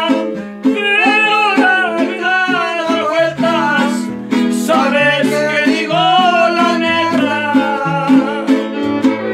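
Son huasteco string-trio music: small strummed jarana and deep huapanguera keep a steady chord rhythm under a gliding melody line.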